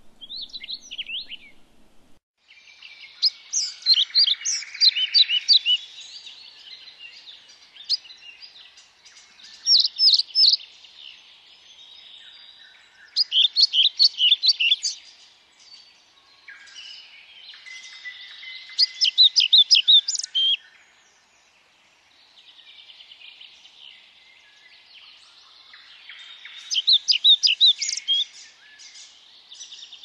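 European bee-eaters calling: bursts of quick, sharp, high notes every few seconds over a steady background chatter of more calls.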